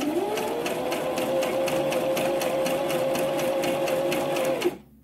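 Brother XM2701 electric sewing machine sewing a zigzag stitch: the motor spins up in the first half second, then runs at a steady speed with a rapid, even rhythm of needle strokes, and stops suddenly near the end.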